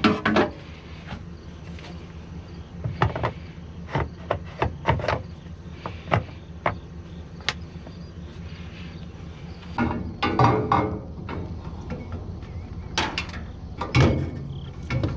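Scattered metallic knocks and clanks of hand work on a combine header around its broken guard, with several louder clatters about two-thirds through and again near the end. A steady low hum and chirping insects carry on underneath.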